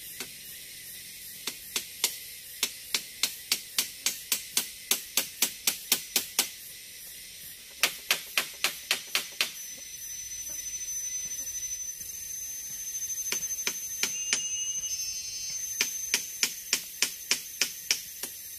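Runs of sharp, evenly spaced clicks, about three to four a second, coming in several bursts a few seconds long. A thin, steady, high-pitched whine sounds through the second half.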